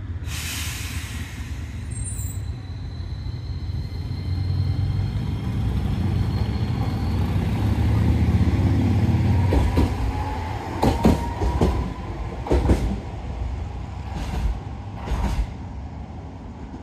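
Low-floor light-rail tram pulling out and running away along the track: a low rumble that builds for several seconds and then fades, with a faint rising whine and a run of sharp wheel clacks over the track from about ten seconds in.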